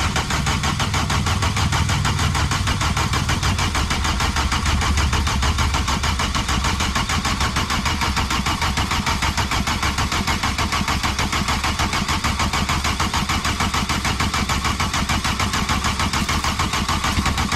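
Starter motor cranking a 1987 VW Jetta's four-cylinder turbo diesel engine for a long spell without it catching, in a rapid, even rhythm. The engine has just been re-primed after an injection pump head reseal, and it is turned over with the injector lines loose to bleed air until fuel reaches the injectors.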